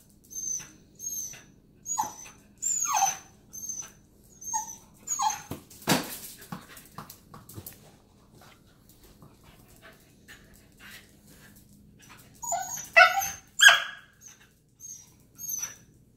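A corgi giving short high-pitched yips and whines about once a second while it waits for a tennis ball, with louder barks around thirteen seconds in. Its claws tap on the tile floor between the calls.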